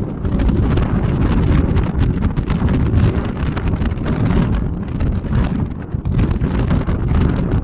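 Storm-force gusty wind buffeting the microphone: a loud, continuous low rumble with rapid crackling flutter, with no tones or rhythm. It is strong enough to drown out the sea surf.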